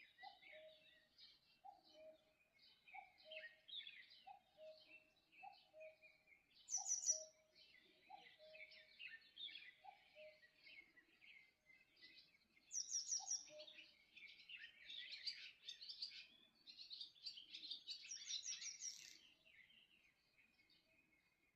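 Faint dawn chorus of several wild birds singing and chirping. A low two-note call, the second note lower, repeats about once a second through the first half. Louder bursts of high, rapid song come about a third of the way in and again through much of the second half.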